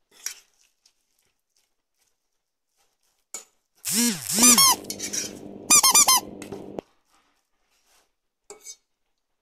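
A toddler's short squealing cries, each rising and falling in pitch: two about four seconds in and more around six seconds, over a steady low hum that cuts off suddenly. Soft taps of a lemon half being handled on the counter come before and after.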